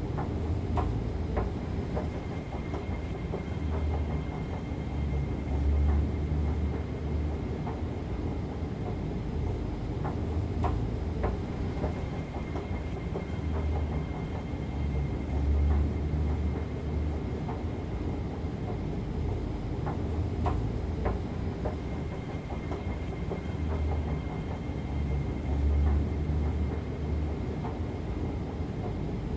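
Central–Mid-Levels escalator running: a steady mechanical rumble with a light clacking of the steps. A low swell and a couple of sharp clicks come back about every ten seconds, over a faint steady high tone.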